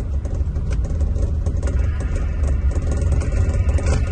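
Scania diesel engine of a Marcopolo Paradiso 1800 DD double-decker coach running steadily, a continuous low drone heard from inside the coach.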